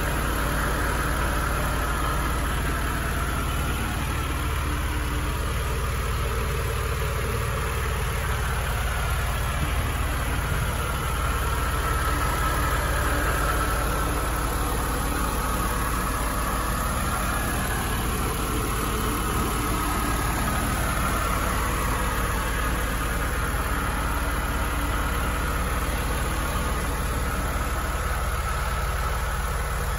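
Mercedes-Benz E320's straight-six engine idling steadily, heard close up with the hood open.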